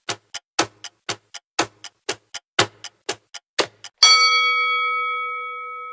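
Quiz countdown timer sound effect: clock ticks about four a second, alternating louder and softer. About four seconds in, a ringing chime strikes and slowly fades, marking that the answer time has run out.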